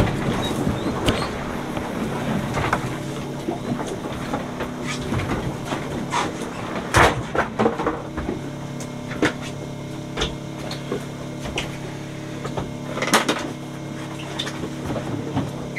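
Boat engine running steadily, with a few sharp knocks and clatters on board, the loudest about seven seconds in and again about thirteen seconds in.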